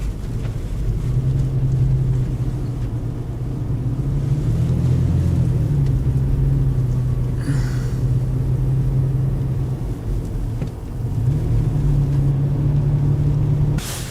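Car engine running at steady revs, its pitch dropping and climbing again about eleven seconds in, with a short hiss near the middle.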